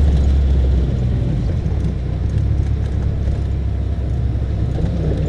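Off-road buggy's engine running as it drives, heard from on board: a steady low rumble whose strong note drops back about a second in.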